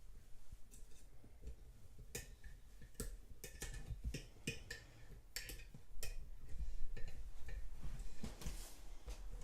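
Irregular light metallic clicks and ticks, some with a brief ring, from a tension tool and pick wire working inside a non-pipe padlock as it is picked.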